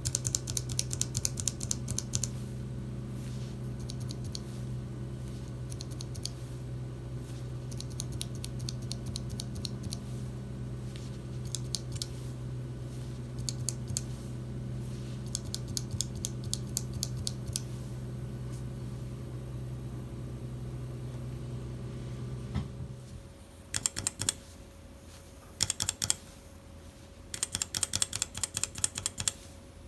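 Typing on mechanical keyboard switches: runs of rapid key clicks, then short separate bursts of keystrokes. A low steady hum lies under the typing and cuts off about three-quarters of the way through.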